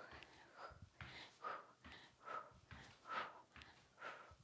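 A woman breathing hard from exertion, picked up close by a clip-on microphone: short, rhythmic breaths a little more than one a second.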